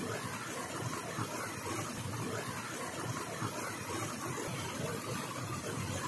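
Small waterfall rushing over rocks: a steady, even rush of falling water.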